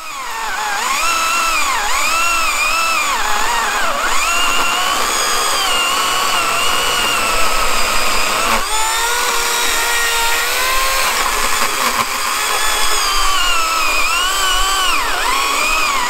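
Corded electric chainsaw with an 11-amp motor and a 14-inch Oregon bar cutting through a large log, its motor whine rising and falling in pitch as it loads up in the cut, with a sudden shift about halfway through.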